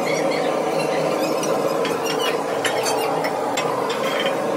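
Hand-held rotary power tool buffing the rubber inside a cut truck tyre, running steadily, with short high squeaks over it.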